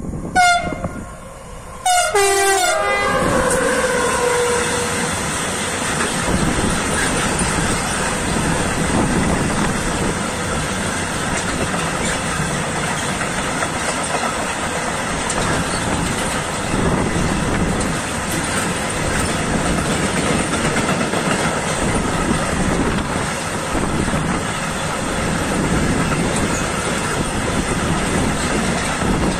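Electric freight locomotive sounds its horn twice, a short blast and then a longer one that drops in pitch, as it passes close by. A long train of empty flat container wagons then rolls past with a steady noise of wheels on rails.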